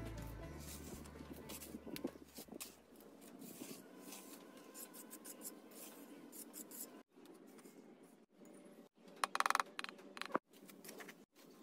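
Light, irregular scraping of a trowel over wet cement mortar, with the tail of background music fading out in the first few seconds. About nine seconds in there is a short, louder rasping scrape.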